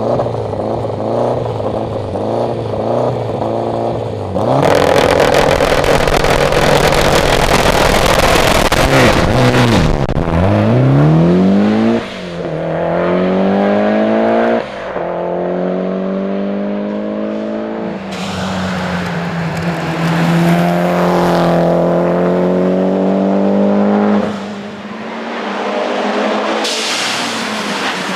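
Mitsubishi Evo X's turbocharged four-cylinder engine heard onboard under hard rally-sprint driving. It holds revs on the line, then at about four seconds launches with a sudden jump in loudness and pulls hard through a series of upshifts, each break followed by a climbing pitch. It drops back near the end, then surges again.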